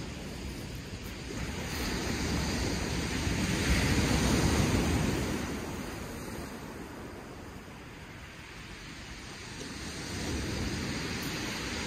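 Surf breaking and washing up a shingle beach: one wave swells to a peak about four seconds in and drains away, and the next comes in near the end. Wind on the microphone underneath.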